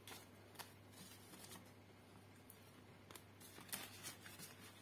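Faint rustling of paper banknotes as they are flicked through by hand and slipped into a clear plastic binder pouch, with a few soft clicks and crinkles.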